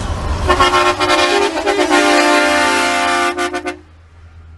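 Car-mounted train horn sounding a steady multi-tone chord for about three seconds, starting about half a second in and cutting off with a few short stutters. A low steady hum remains after it.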